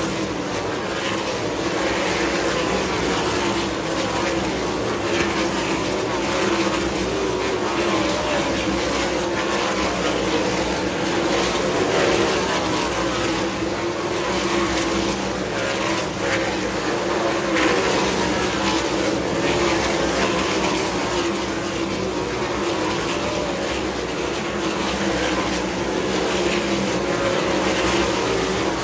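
Several winged dirt-track sprint car engines running together around the oval, a steady, loud layered engine drone with no break.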